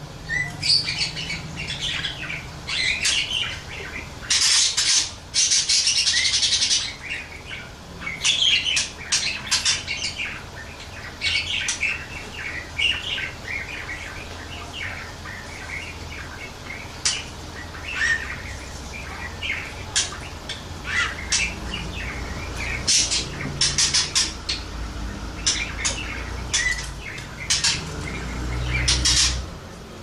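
Budgerigar (parakeet) warbling in a long, unbroken run of chattering chirps, clicks and scratchy notes, with a harsher, denser stretch a few seconds in.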